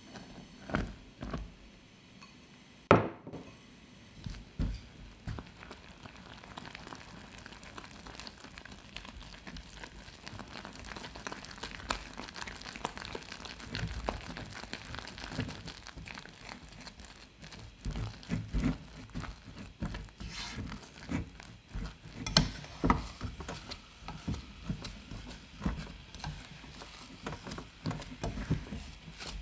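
Silicone spatula stirring and pressing flour into melted butter and water in a small saucepan over low heat, cooking it into a thick churro (choux) dough: soft scraping and irregular dull knocks against the pan, with one sharp knock about three seconds in.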